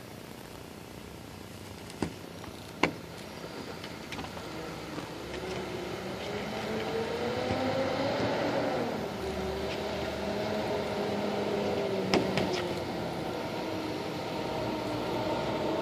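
An engine running, its pitch and loudness climbing until about eight seconds in, then dropping and holding fairly steady. A few sharp clicks come through, the loudest about three seconds in.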